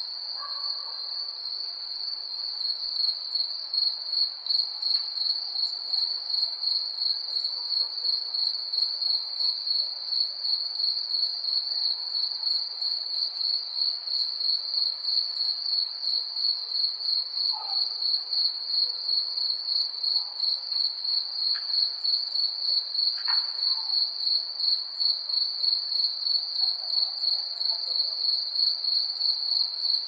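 Night-time crickets chirping in a steady, even pulse, about three chirps a second, growing louder about three seconds in. A few faint short sounds are heard in the background.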